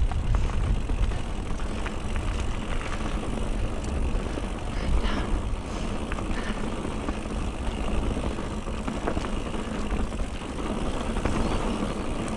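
Wind rushing over the camera microphone of a mountain bike on the move, with its knobbly tyres rolling over dry dirt and loose gravel. Small clicks and rattles come from the bike over the bumps.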